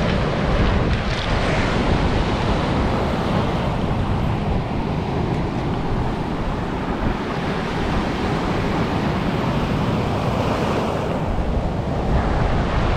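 Sea surf breaking on a shore, with wind rumbling on the microphone.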